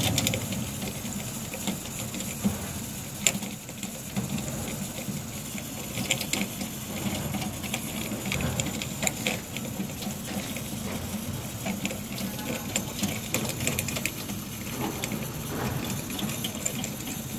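Limescale-clogged Beretta bithermal gas boiler's heat exchanger crackling with rapid irregular ticks and a few sharper knocks over a steady low hum. The owner takes it for water boiling inside the scaled-up exchanger.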